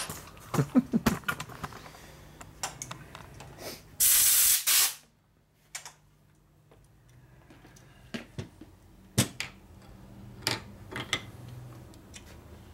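A short, loud blast of compressed air from a shop air nozzle, hissing for just under a second about four seconds in. Around it, sharp clicks and clinks of metal transmission parts being handled on a workbench, a quick cluster near the start and a few single ones later.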